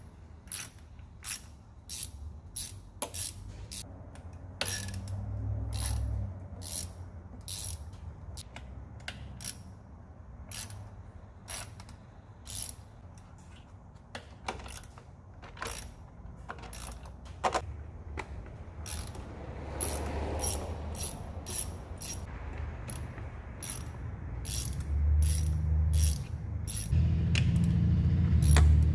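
Hand ratchet clicking in short irregular runs as the 10 mm intake manifold bolts on a 5.3 LS V8 are loosened, with heavier low rumbling in the last few seconds.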